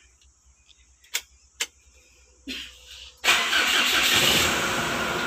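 Two sharp clicks, then a little over three seconds in the freshly overhauled engine of a Mitsubishi Strada Triton starts abruptly and settles into a steady idle.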